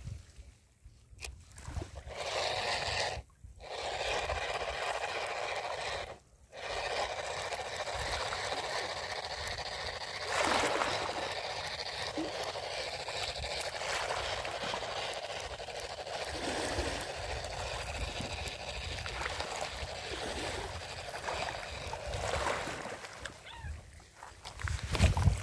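Water splashing and trickling in a steady wash, cutting out briefly twice a few seconds in.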